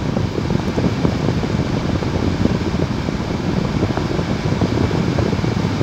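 Steady rush and low rumble inside a car's cabin as it drives slowly over a cobblestone street.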